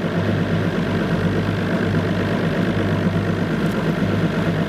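Motorboat engine running steadily, a low even drone with the rush of the boat moving over the water.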